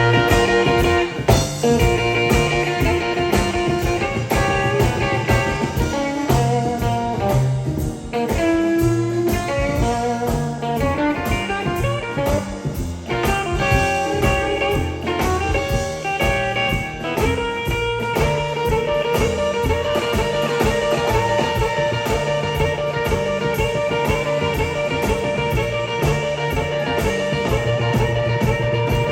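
Live blues band playing an instrumental passage, electric guitar leading over piano, upright bass and drums with a steady beat. Long held notes come in about 17 seconds in.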